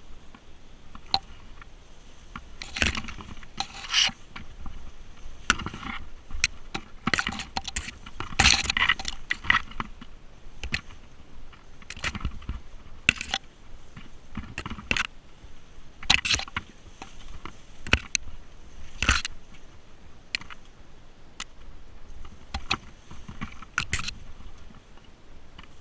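Mountain bike riding over rough off-road ground: irregular clattering knocks and scrapes as the bike jolts over the trail.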